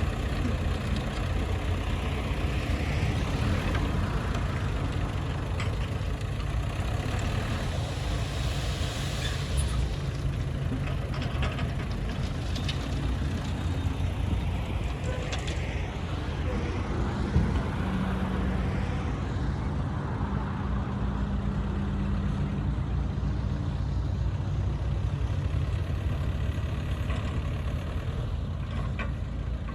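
Bulldozer's heavy diesel engine running steadily, with scattered short knocks and one sharp knock a little past the middle.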